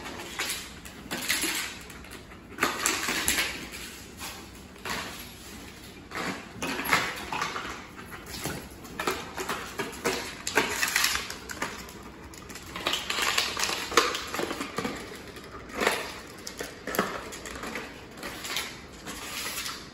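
A German Shepherd and a blue bay shepherd puppy playing rough on a tile floor: irregular scrabbling and clicking of claws on the tiles, mixed with the crinkling and clatter of a plastic water bottle.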